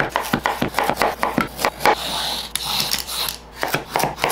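Kitchen food prep on a wooden cutting board: a quick, irregular run of scraping and tapping strokes, with a rougher rasping stretch about halfway through.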